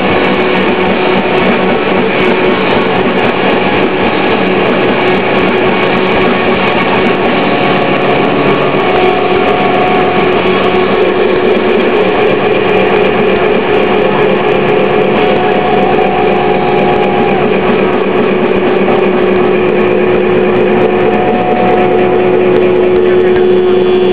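Loud distorted electric guitar noise and feedback: a dense droning wash with a long held feedback tone and no beat.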